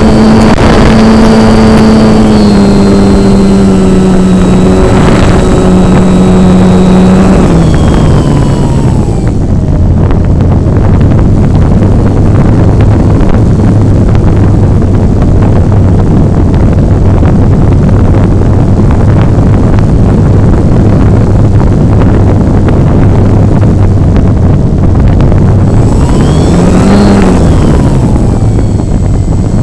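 Model airplane's motor and propeller droning steadily under rushing air, heard from on board. The pitch drops to a lower drone about eight seconds in, swells up and back down briefly near the end, then starts to rise again.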